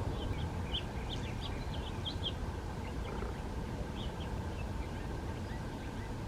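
Birds chirping in quick short notes, thickest in the first couple of seconds and again briefly around the middle, over a steady low rumble.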